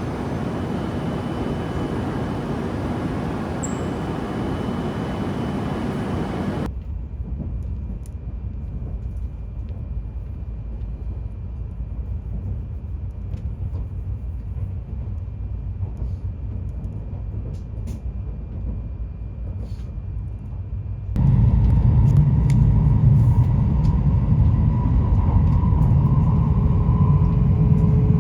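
Steady running rumble of a moving train, heard from inside the carriage. It drops suddenly about a quarter of the way through to a quieter, deeper rumble, then turns much louder and deeper again later on.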